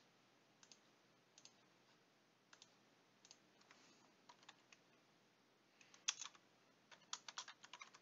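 Faint clicks of a computer keyboard and mouse: a few scattered single clicks, then a quick run of keystrokes from about six seconds in as a short word is typed.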